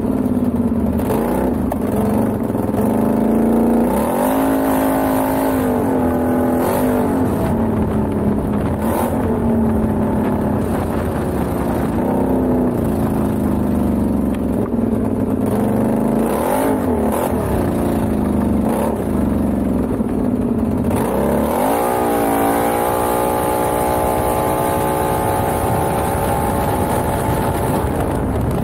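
Can-Am XMR ATV engine revving up and down as the quad is ridden hard over gravel, its pitch rising and falling several times, then held high and steady for the last few seconds.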